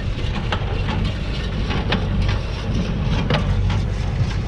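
Tractor engine running steadily while pulling a working New Holland 68 square baler, with repeated knocks and clanks from the baler's moving parts over the engine's low hum.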